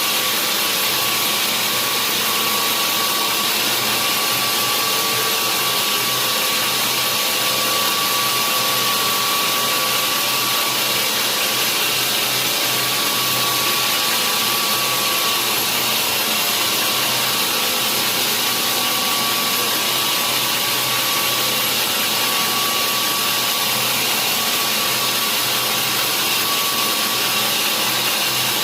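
Sawmill saw running steadily: a loud, even mechanical noise with a thin steady tone over it.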